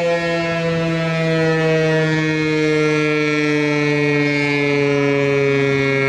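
American Signal T-135 rotating outdoor warning siren sounding a loud, steady, low horn-like tone rich in overtones, its pitch slowly and evenly dropping. It grows a little louder about a second and a half in as the rotating horn swings toward the listener.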